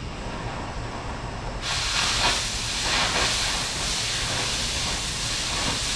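Oxy-fuel cutting torch on the steel edge of a front-end loader bucket, hissing steadily. About one and a half seconds in, a much louder, sharper hiss sets in as the cutting oxygen jet comes on and the torch begins cutting through the steel.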